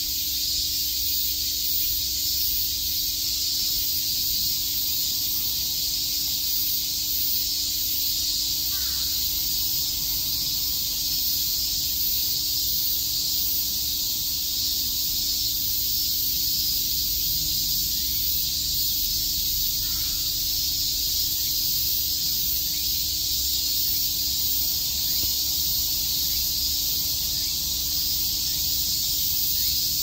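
Chorus of cicadas calling together, a steady, unbroken high-pitched hiss.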